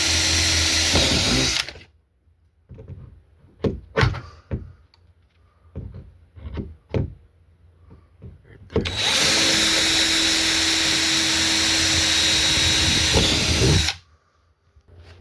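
Power drill boring the two mounting holes for a side handle through the plastic kayak hull: one run that stops early on, a few seconds of knocks and clicks as the bit is repositioned, then a second steady run of about five seconds that stops near the end.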